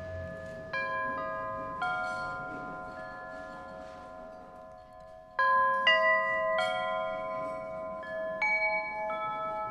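Metal chimes struck one after another, each clear note ringing on for several seconds so that the notes overlap into chords. A louder group of strikes comes about halfway through.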